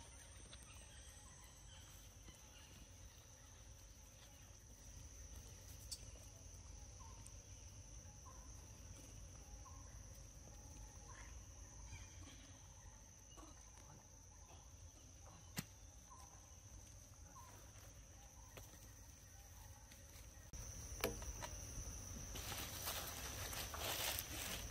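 Faint outdoor ambience: a steady high-pitched insect drone with scattered short chirping calls and a couple of clicks, and rustling near the end.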